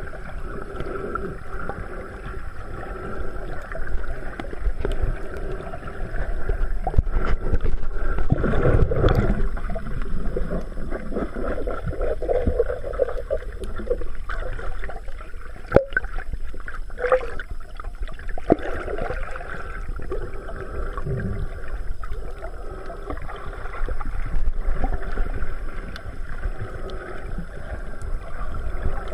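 Muffled underwater sloshing and rumbling of water, heard through a GoPro's waterproof housing just below the surface, swelling and easing irregularly. A sharp click comes about halfway through.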